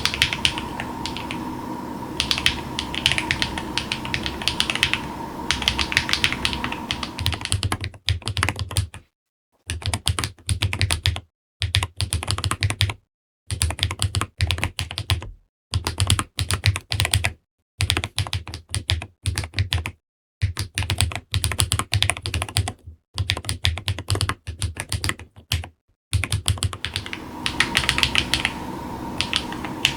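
Fast typing on a Wooting 80HE keyboard fitted with GATERON Jade Delta Dark magnetic Hall-effect switches and PBT Cherry-profile keycaps: a dense run of key clacks. Through the middle stretch the typing comes in short runs broken by moments of dead silence, with a deeper low thock under each run.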